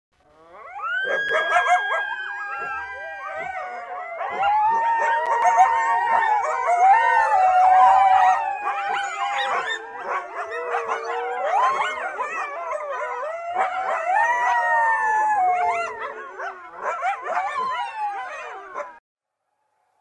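A pack of coyotes howling and yipping together, many voices overlapping in long wavering howls and short quick yips. The chorus cuts off suddenly near the end.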